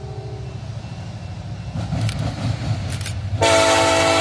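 Approaching diesel freight locomotive running with a low steady engine sound, then its air horn sounding a loud sustained blast that starts about three and a half seconds in.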